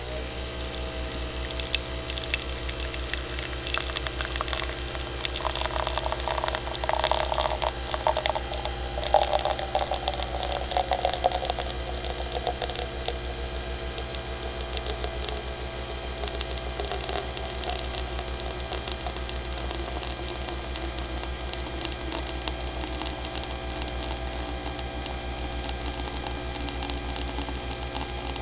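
Coffee maker running: a steady low pulsing hum of the machine, with crackling, gurgling sputter as the coffee comes through, strongest between about five and twelve seconds in, then settling to the hum.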